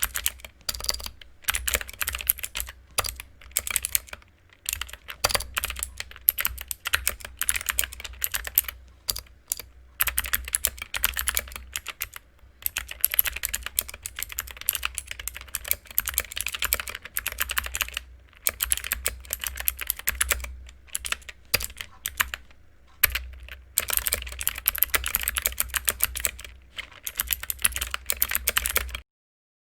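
Typing on a mechanical keyboard with clicky blue switches, in fast runs of keystrokes broken by short pauses. The sound cuts off suddenly about a second before the end.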